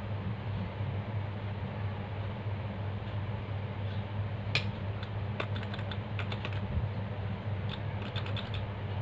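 Small tactile push buttons clicking as the clock's time is set: a single click about halfway through, then two quick runs of rapid clicks, over a steady low hum.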